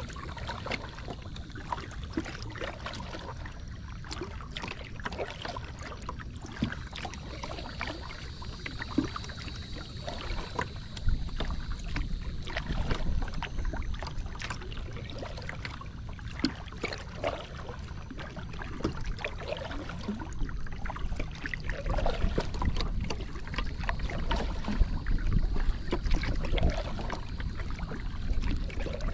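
Small waves lapping and splashing against the plastic hull of a Moken 12.5 kayak as it glides along, with many short sharp splashes. Wind rumbles on the microphone throughout, heavier in the second half.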